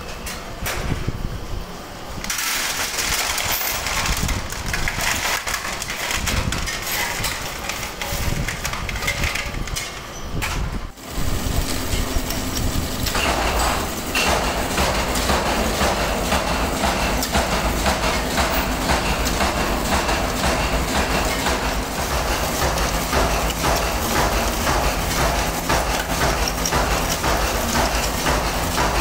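Factory machinery running. About eleven seconds in, the sound changes to a belt-driven spindle machine running steadily with a low hum, over a dense rattle of metal as hex nuts are fed onto the spindle one after another.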